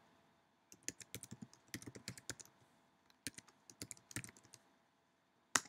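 Typing on a computer keyboard: a few irregular bursts of key clicks, then a single louder key press near the end, as an email address is typed and entered.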